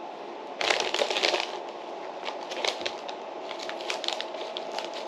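Crisp crunching and crackling of Koikeya potato chips being eaten by hand. The foil chip bag crinkles as it is picked up, with a dense burst of crackling about a second in and scattered crunches after.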